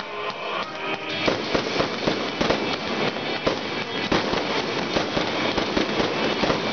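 Fireworks going off in quick succession: a dense run of bangs and crackles starting about a second in, with music playing under them at first.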